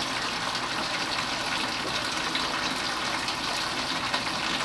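Steady rush of water as Barnacle Buster descaler is flushed through a salt-water-cooled air-conditioning unit to clear limescale.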